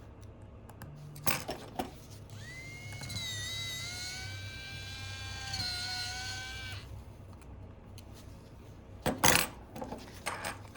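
A small electric precision screwdriver whines for about four seconds, spinning up and then running with slight changes in pitch as it turns out tri-wing screws. A few sharp clicks of small parts being handled come before and after it.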